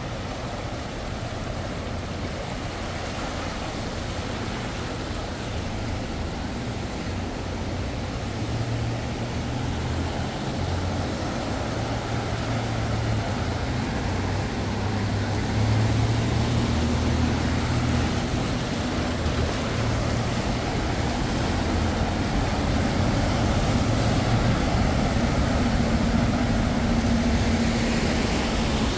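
Ride noise of a moving vehicle: a steady low rumble and hum that grows slightly louder. A low steady tone comes in about halfway through.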